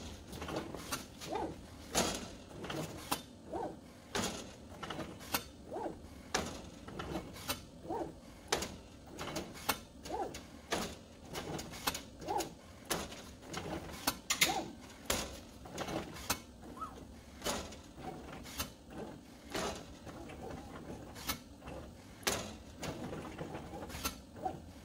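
CNC plasma table gantry and Z-axis stepper motors drawing with a spring-loaded Sharpie marker holder: short stop-start motor whirs, each move marked by a sharp click, about one a second as the pen drops, traces a small shape and lifts.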